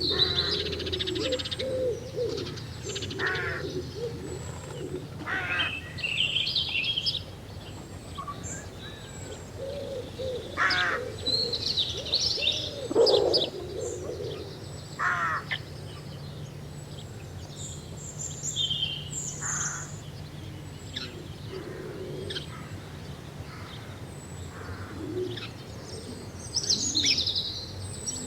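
Mixed birdsong at dawn: many birds chirping and whistling in short calls, with lower warbling calls at times, over a faint steady low rumble.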